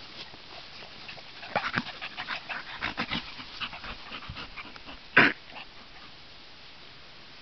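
A brindle bull terrier and a small black pinscher play-wrestling, with a run of quick, short breathing noises and snorts, then one louder short burst a little after five seconds in.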